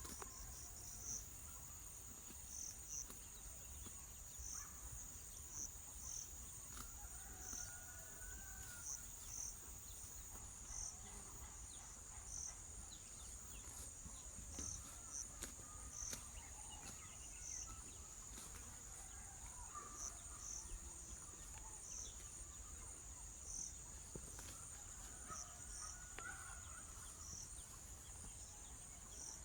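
A steady high-pitched insect drone with short chirps repeating at uneven intervals, a few a second at times. Faint scattered bird calls and a low rumble sit underneath.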